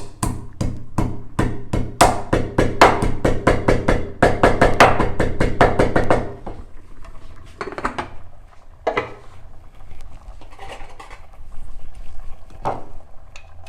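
A pestle pounding in a mortar: quick, even strikes at about four a second for some six seconds, then only a few scattered knocks.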